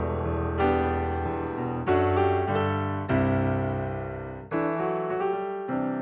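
Slow piano music: a chord struck about every second and a bit, each one ringing and fading before the next.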